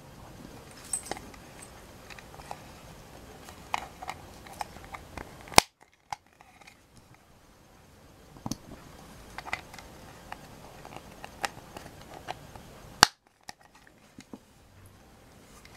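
Small plastic Playmobil toy parts clicking and tapping as they are handled and fitted together, in scattered irregular clicks, with two louder sharp clicks, one about five and a half seconds in and one near the end.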